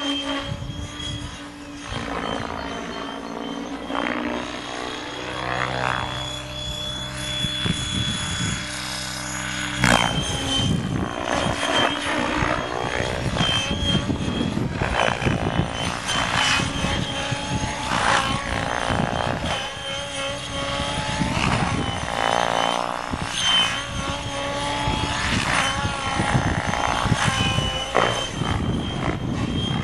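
Mikado Logo 600 radio-controlled helicopter flying aerobatics. Its rotor whirs and whooshes, and the pitch rises and falls again and again as it manoeuvres and passes overhead.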